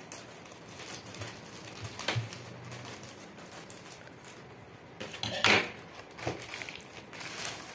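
A plastic courier mailer bag rustling and crinkling as it is cut open with scissors and the cut strip pulled off, with a few sharp clicks, the loudest about five and a half seconds in.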